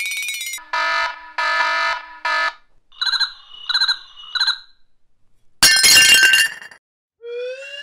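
A run of cartoon sound effects. A harsh buzzer sounds three times, then come three quick two-note beeps and a loud crash, and near the end a rising slide-whistle glide begins.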